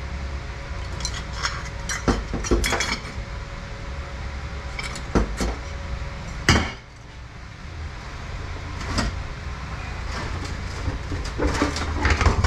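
Metal automatic-transmission internals clinking and knocking as they are handled and set down during disassembly, with one louder knock about six and a half seconds in and a cluster of clinks near the end, over a steady low hum.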